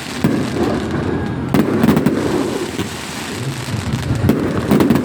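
Fireworks going off: a string of sharp bangs with crackling between them, several close together just before two seconds in and again near the end.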